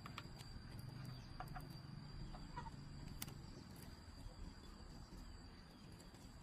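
Faint chickens clucking, a few short clucks between about one and three seconds in, over a steady faint high-pitched tone and low background hum.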